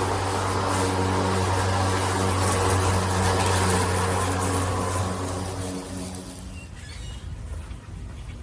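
Greenworks 80V brushless cordless lawn mower running with a steady electric hum from its motors and spinning blades, then winding down and fading out about six seconds in.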